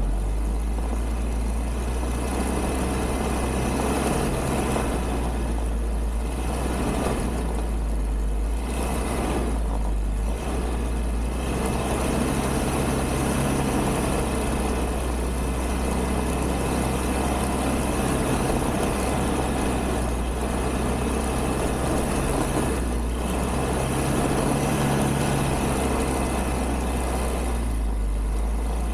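ATV (quad) engine running steadily while being ridden, heard from the rider's seat, its sound dipping briefly a few times.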